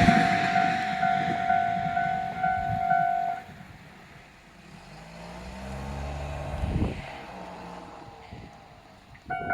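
Tobu Tojo Line railway crossing warning bell ringing in steady electronic pulses, about two a second. This is the line's standard bell tone, now rare. It stops about three and a half seconds in, once the train has cleared. A low hum from a passing road vehicle rises and fades in the quiet that follows, and the bell starts ringing again just before the end.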